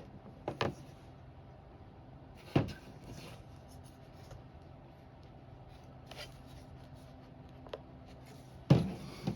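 A few sharp clicks and knocks from camper window parts being handled and pressed into the frame channels. One comes about two and a half seconds in, and the loudest comes near the end.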